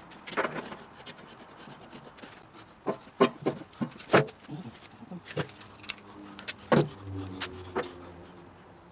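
Irregular sharp clicks and knocks of brass plumbing fittings and a hand tool being handled against a steel tank, the loudest a little past three, four and about six and three-quarter seconds in.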